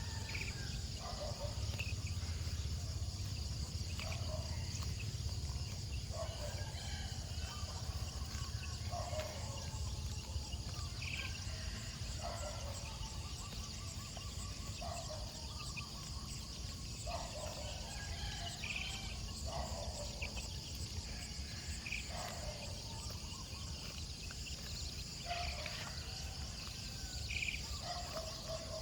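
Steady chorus of insects in the open, with a short call repeating every two to three seconds over a low rumble.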